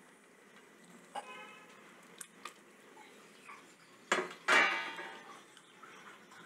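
Steel kitchenware knocking and scraping against a cooking pot as rice-flour balls are tipped off a steel plate into hot water and a wire strainer is put in the pot. There is a short scrape about a second in and two light clicks soon after. The loudest sound is a ringing metal scrape about four seconds in.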